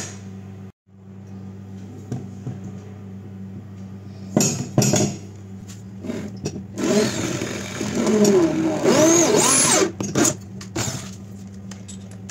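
Handheld electric drill running for about three seconds, its motor pitch rising and falling, drilling screw holes in a metal LED street-light housing. A few sharp knocks come before and after it.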